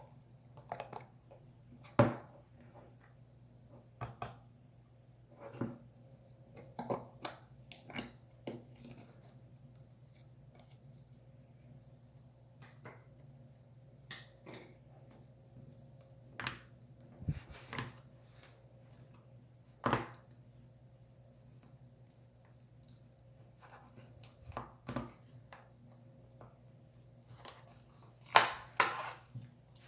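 Cloud slime being handled, squeezed and stretched, giving irregular soft crackles, clicks and pops, with a few louder snaps.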